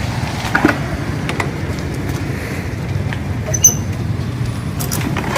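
Steady low rumble of road traffic, with a few light clicks and one brief high-pitched chirp about three and a half seconds in.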